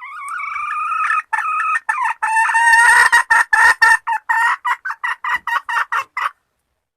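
Junglefowl hen calling to solicit mating: a drawn-out opening note, then a run of short clucking notes about four a second that stops abruptly.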